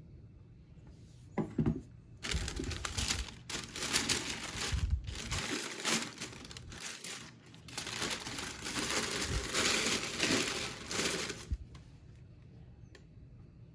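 Packaging being handled and crinkled, with a couple of soft knocks about a second and a half in, then a long stretch of rustling with short pauses.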